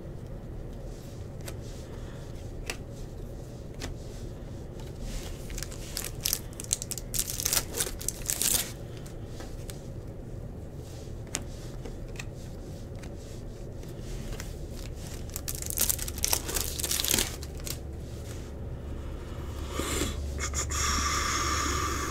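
Trading cards rustling and clicking against each other as a stack is handled and flipped through, in scattered short bursts over a steady low hum. Near the end, a denser crinkling and tearing of a foil card-pack wrapper.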